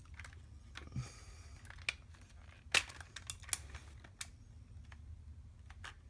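Plastic parts of a large Transformers Optimus Primal action figure clicking and clacking as they are handled and moved, with a few sharper clacks around the middle, over a low steady hum.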